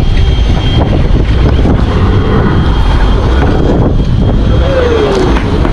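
Heavy wind buffeting the microphone over the steady drone of a boat engine running at speed on open water.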